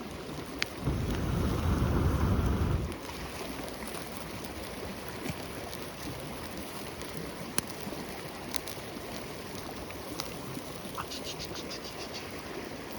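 Wind buffeting the microphone as a low rumble for about the first three seconds. After that comes a steady outdoor hiss with a few scattered sharp pops and a quick run of ticks near the end.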